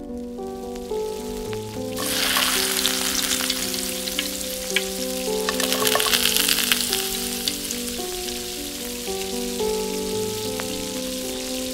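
Hot oil sizzling in a tiny iron kadai, starting suddenly about two seconds in and crackling loudest around the middle as mustard seeds go in; curry leaves are dropped in near the end. Instrumental background music plays throughout.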